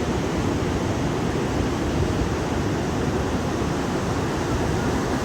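Ocean surf rushing steadily, mixed with wind on the microphone.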